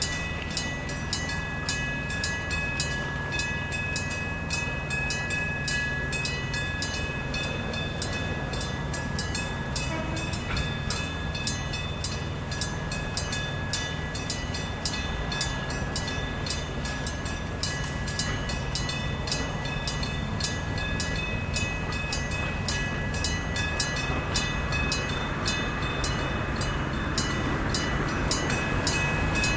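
Electric-bell level-crossing warning bell ringing with even, rapid strikes, three or four a second, each leaving a steady ringing tone. A low train rumble runs underneath and grows louder near the end.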